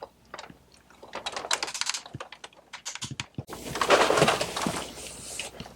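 Plastic crank dial of a Bruder toy fire engine's ladder being turned by hand, giving irregular ratcheting clicks that turn into a faster, denser run of clicking about three and a half seconds in.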